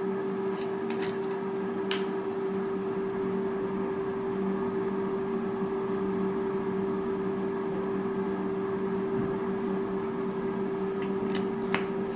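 Air fryer running with a steady hum from its fan and heater. It is cooking chicken drumsticks at 360 °F. A few light clicks come near the start and again near the end.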